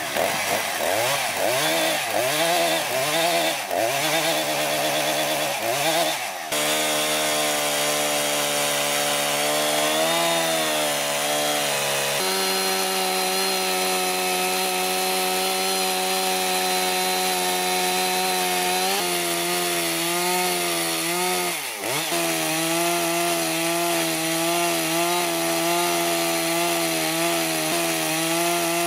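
Small two-stroke chainsaw mounted in a vertical chainsaw mill, revving up and down for the first several seconds, then running at steady high revs under load as it rips lengthwise along a log. The revs dip briefly about three quarters of the way through.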